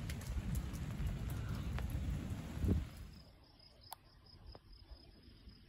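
Outdoor ambience after a rainstorm: a steady rushing noise, heaviest in the low end, for about three seconds, then a sudden drop to faint quiet with a few soft ticks.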